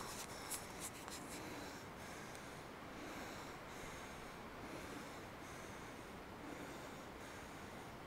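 Footsteps rustling through dry fallen leaves in oak woodland, with a few sharp cracks like snapping twigs near the start.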